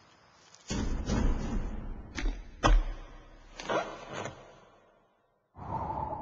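A run of dramatic whoosh-and-hit sound effects: about six sharp hits, each trailing off in a falling swoosh. After a brief silence, a steady droning tone begins near the end.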